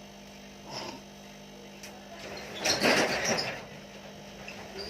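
Steady electrical hum under brief handling noise at a phone repair bench: a small knock about a second in, then about a second of louder scraping and clatter in the middle.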